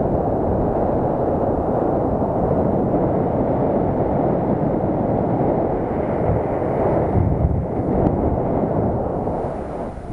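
Airflow rushing over a paraglider's on-board camera microphone in flight: steady low wind noise that dips briefly near the end.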